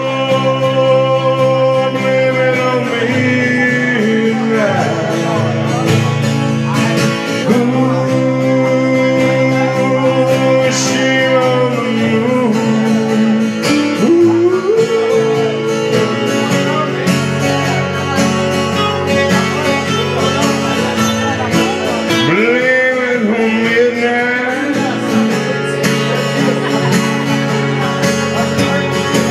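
Two acoustic guitars playing a country-style song live, with a man singing over them in long, held notes.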